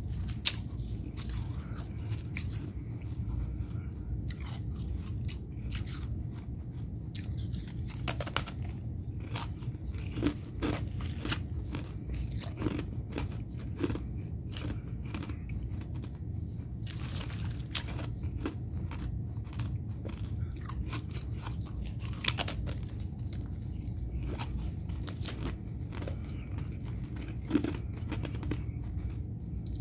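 Someone biting and chewing mouthfuls of freezer frost close to the microphone: irregular crisp crunches throughout, with a few louder bites.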